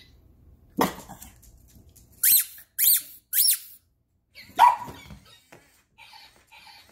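Squeakee robotic balloon-dog toy giving three high squeaks in quick succession, each rising and falling in pitch like a rubbed balloon. A single bark comes about a second before them and another about a second after.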